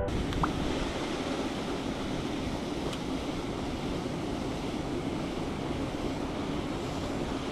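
Mountain stream water rushing, a steady noise with a faint tick or two.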